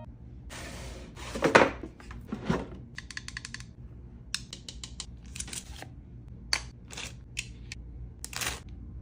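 Unboxing handling noises: several short rustling swishes of packaging, a run of quick crisp clicks and taps, and scattered sharp ticks over a low steady hum.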